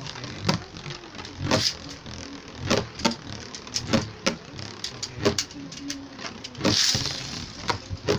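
Beyblade spinning tops in a plastic stadium: irregular sharp clicks and knocks as a top spins, rattles and strikes the stadium. About a second and a half before the end, the zip of a ripcord launcher sends a second top into the bowl.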